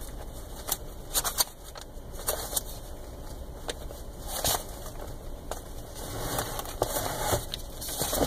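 Sheets of paper being pulled out and shuffled by hand, rustling and crinkling in short irregular bursts over a low steady hum.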